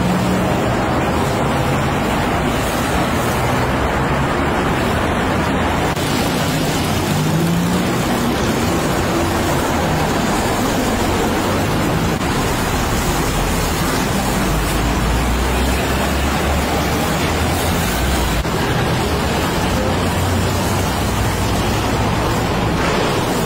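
Steady road-traffic noise from cars and vans passing on a busy multi-lane road, a continuous hiss of engines and tyres with a low rumble.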